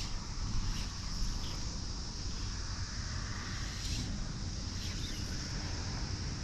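Wind buffeting the head-cam microphone as a steady, uneven low rumble, over a constant high hiss.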